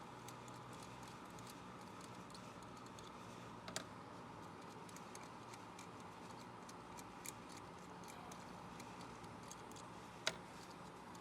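Faint scattered clicks and light taps of hand tools, the loudest three about four, seven and ten seconds in, over a low steady hum.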